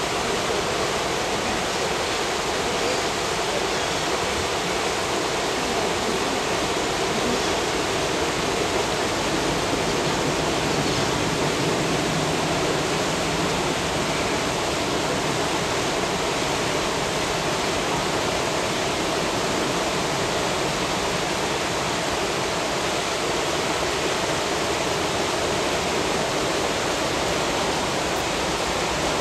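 Steady rushing of churning, foaming water, a constant even noise with no breaks.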